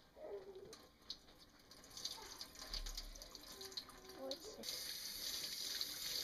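Water from a kitchen faucet running over a cheesecloth bundle of ground acorn meal as it is squeezed and worked in a stainless-steel sink; the flow gets louder and steadier about three-quarters of the way through. This is cold-water rinsing to leach the bitter tannins out of the acorn meal.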